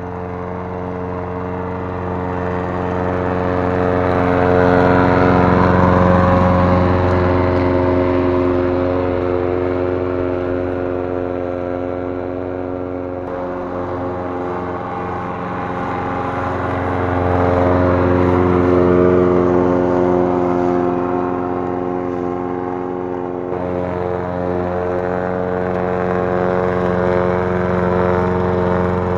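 Makita PLM5600N lawn mower's 190cc four-stroke engine running steadily under load as it cuts tall grass. It grows louder and then fades twice as the mower is pushed close by and away again.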